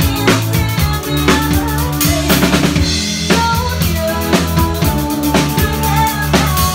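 A live band playing, with a full drum kit keeping a steady kick-and-snare beat of about two strikes a second over bass and guitar.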